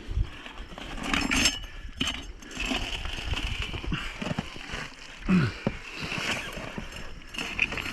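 Scattered metal clinks and knocks of tire tools and the wheel rim being handled while a motorcycle tire is worked off the rim, with a brief low falling sound about five seconds in.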